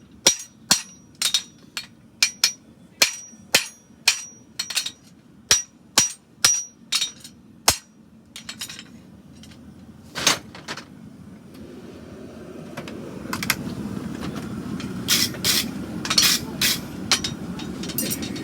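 Farrier's hammer striking a horseshoe on an anvil at about two blows a second, each blow ringing. The blows stop about eight seconds in. A single blow follows, then a steady rushing noise swells up under a last cluster of blows.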